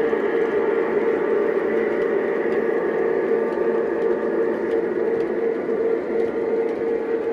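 O-scale model passenger train with diesel locomotives rolling past: a steady whirring hum of motors and wheels on the track, with a constant drone.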